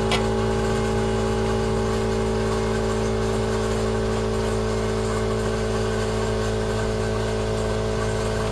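A steady machine hum, even in pitch and level, with a single click right at the start.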